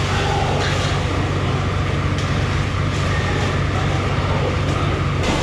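A vehicle engine running steadily with a low hum and a rush of road or wind noise; the sound breaks off abruptly near the end.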